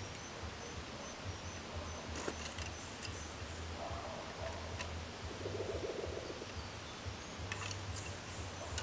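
Forest ambience with an insect's high, evenly repeating chirp, a short buzz a little past halfway, and a few sharp clicks and knocks of wooden poles being handled.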